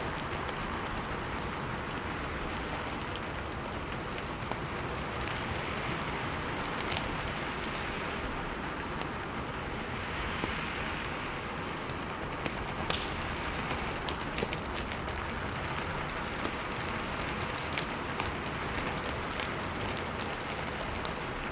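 Steady rain with small crackles and pops scattered throughout, a rain-and-fireplace ambience.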